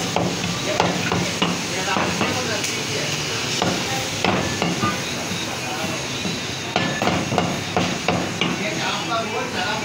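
Meat cleavers chopping mutton and bone on wooden butcher's blocks: irregular sharp knocks, roughly one a second.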